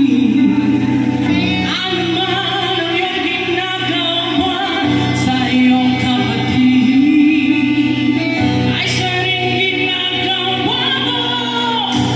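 Music with singing played loud over a PA system, the voice holding and sliding between long sung notes over a steady backing.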